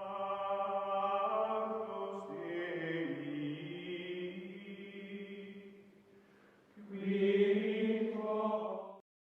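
Music of long, held, chant-like chords. The chord changes about two and a half seconds in and fades, then a louder final chord comes in about seven seconds in and cuts off abruptly near the end.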